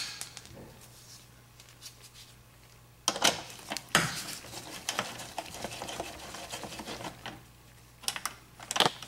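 Small metal clicks and taps of a nut driver working a nut loose on an oven's terminal block. There is a sharp click about three seconds in and another a second later, then a run of light ticks and a few more clicks near the end.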